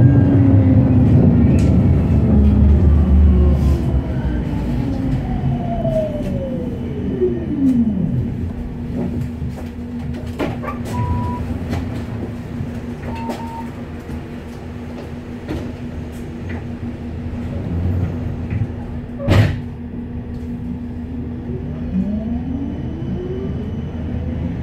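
Electric tram heard from inside: the traction motors' whine falls in pitch as it brakes to a stop, then a steady hum while it stands. Two short high beeps and one sharp clack come during the stop, and near the end the motor whine starts rising again as the tram pulls away.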